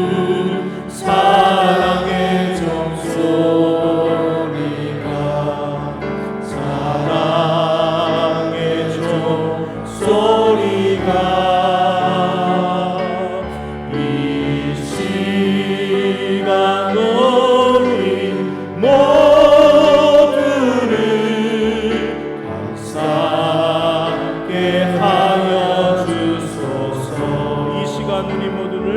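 Choir singing a slow hymn in held, swelling phrases with vibrato, over a steady accompaniment.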